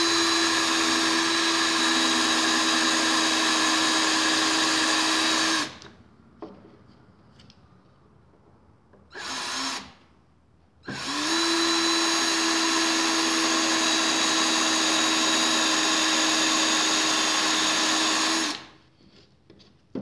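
Cordless drill running steadily with a small bit, starting a shallow pilot hole in the centre of a metal rivet head. It runs in two long spells of about six and seven seconds, with a short blip of the trigger between them.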